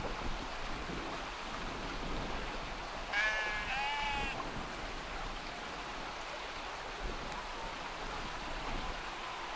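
A sheep bleats twice in quick succession about three seconds in, over a steady background hiss.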